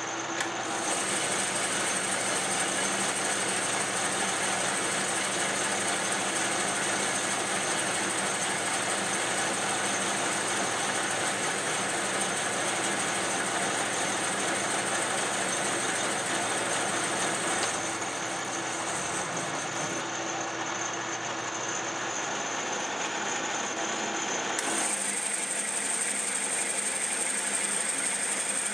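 A metal lathe running steadily under power, its cutting tool taking a roughing cut across the face of a spinning metal workpiece. The running sound changes character about 25 seconds in.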